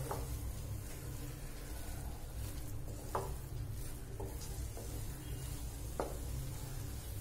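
Wooden spatula stirring and scraping a thick paneer and milk-powder kalakand mixture in a nonstick kadai, the mixture being cooked down and dried on a low flame. There are three sharp knocks of the spatula against the pan, about three seconds apart, over a steady low rumble.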